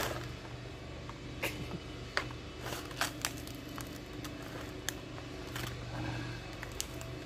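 Ripe banana being peeled by hand, the peel tearing away in a series of small, irregular crackles and snaps.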